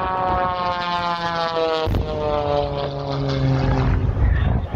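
Propeller airplane engine droning with a slowly falling pitch, cut off abruptly about two seconds in and followed by a second, lower droning pass that also falls in pitch.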